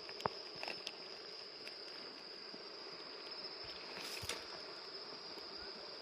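Wood campfire crackling with a few sharp pops, the loudest about four seconds in, over a steady high-pitched trill of insects.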